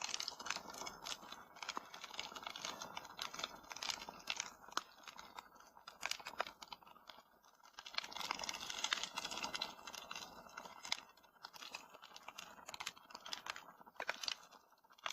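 Wood fire crackling in a fireplace: irregular sharp pops and snaps over a steady hiss of burning.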